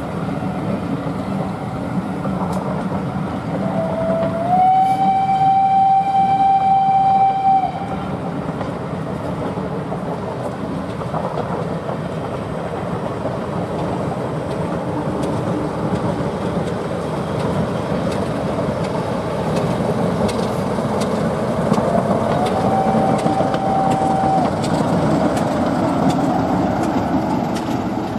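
Passenger coaches rolling past with a steady rumble and clatter of wheels on rail, while the locomotive sounds its whistle twice: a long blast of about three seconds around four seconds in, and a shorter one about twenty-two seconds in, each sliding up a little in pitch as it opens.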